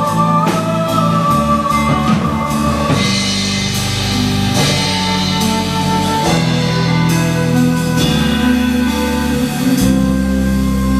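Instrumental band music without singing: held chords over drums, with cymbal washes.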